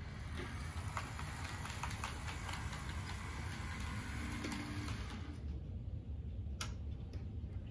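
Bachmann HO scale B23-7 model diesel locomotive running along the track: a steady low motor hum with light, rapid ticking from the wheels and mechanism, and one sharper click near the end.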